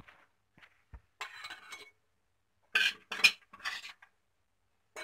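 Kitchen utensil clatter and clinks as garlic cloves, green chillies and raw mango pieces are scooped from a steel pan into a glass jar. It comes in several short bursts, the loudest about three seconds in.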